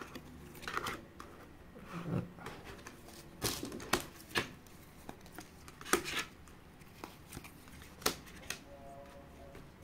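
Trading cards being put down one by one on a table: several light, irregularly spaced slaps and taps of card on the tabletop.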